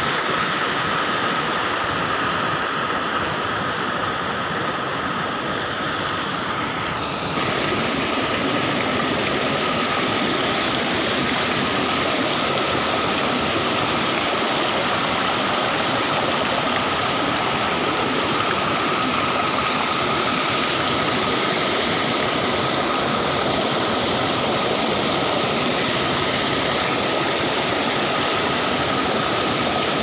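Rushing river water pouring over and between rocks: a steady, even roar of white water. It changes and grows a little louder about seven seconds in, and a faint steady high tone runs underneath.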